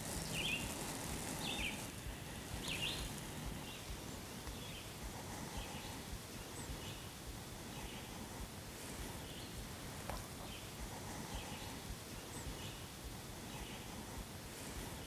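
Faint outdoor ambience: birds giving short chirps about once a second over a low, even hiss.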